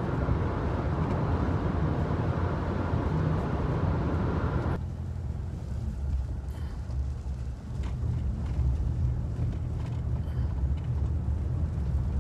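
Car being driven, with a steady low road-and-engine rumble heard from inside the cabin. A louder rushing noise over it cuts off suddenly a little before halfway through.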